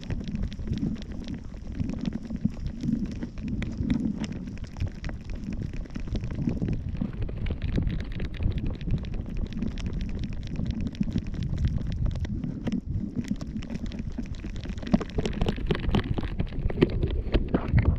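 Wind buffeting the microphone of a camera worn on a small dog's back, a steady low rumble with frequent small clicks and rustles from the moving harness.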